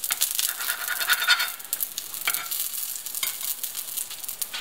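Semolina pancakes sizzling and crackling in hot oil in a cast-iron frying pan, with a spatula scraping and clicking against the pan as it pushes and turns them.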